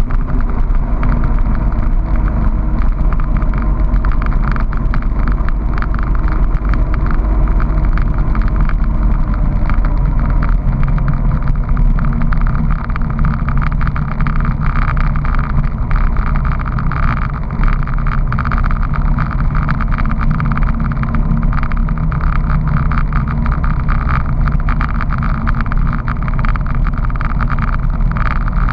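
Honda PC800 Pacific Coast motorcycle's V-twin engine running steadily at cruising speed, with wind rushing over the fairing and the microphone.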